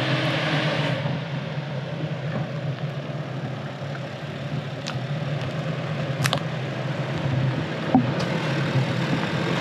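Nissan Xterra driving on a dirt trail: a steady low engine hum with road noise, and a few sharp clicks or knocks about five, six and eight seconds in.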